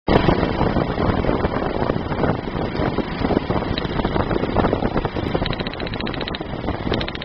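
Daewoo Nubira engine running unevenly with a misfire, a fault that was traced to cylinder head damage. About two-thirds of the way through, a fast, regular ticking joins in.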